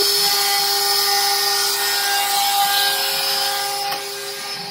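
X-Carve CNC router running, its router spindle whining at a steady pitch while the bit cuts mortises in wood. The cutting noise eases off slightly near the end.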